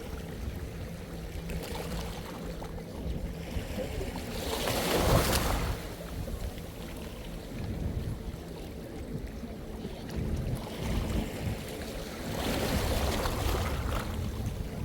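Sea waves washing onto the shore, swelling twice: about five seconds in and again near the end.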